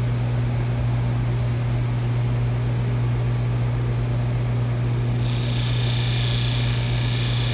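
Electric motor spinning a small stone deburring wheel, a steady hum. About five seconds in, a small knurled metal nut is pressed against the stone and a steady grinding hiss starts, as the wheel smooths the edge of a freshly milled dimple.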